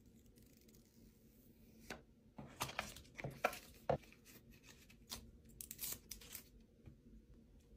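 Paper and cardboard packaging of an iPhone 14 Pro Max box being handled and torn open: a soft rustle, then two clusters of sharp paper crackles, about two to four seconds in and again about five to six and a half seconds in.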